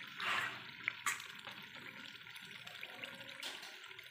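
Masala gravy simmering and sizzling in a steel kadai, a soft bubbling hiss with a louder swish just after the start and a few short clicks.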